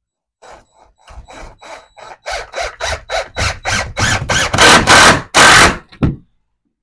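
Power driver running deck screws into truss lumber in a quick series of short pulses that get louder toward the end, stopping about six seconds in.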